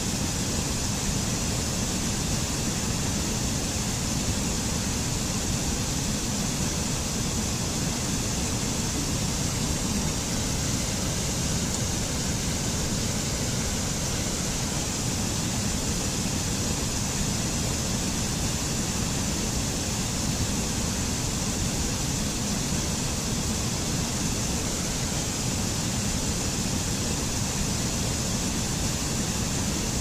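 Mountain stream rushing down small cascades over rocks: a steady, even rush of water with a deep low rumble and a bright hiss, unchanging throughout.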